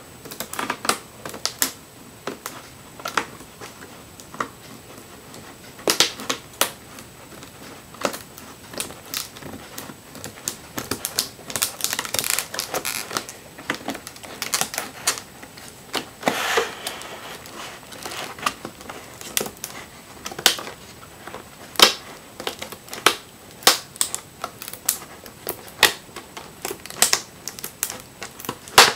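Hard plastic product packaging being cut open: an irregular run of sharp snips and cracks, a few times drawn out into a longer crackling as the plastic gives.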